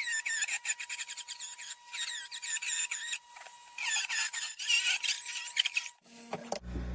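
Angle grinder with a cutting disc slicing through 100 mm square metal pipe: a high-pitched, wavering screech of the disc in the metal over the grinder's steady whine. It stops about six seconds in.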